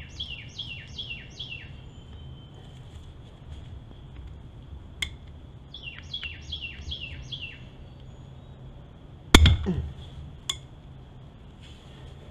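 A songbird calls twice, each time a quick run of about five descending chirps, over a faint steady hum. About nine seconds in there is one sharp, ringing metal clank from a steel socket wrench on the excavator's final drive cover, with a couple of lighter taps around it.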